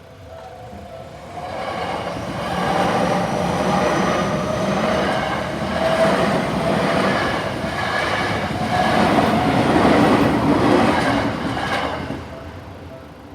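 A Seibu Ikebukuro Line electric train passing through a level crossing: its rush builds over the first second or two, stays loud for about ten seconds, then fades near the end. The crossing's warning bells ring underneath, heard plainly as the train approaches and after it has passed.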